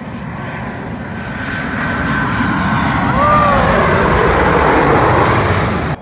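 Airliner passing low overhead on its landing approach, its jet engine noise building to the loudest about three seconds in, with a faint high whine. A short exclamation-like voice rises and falls near the middle, and the sound cuts off abruptly at the end.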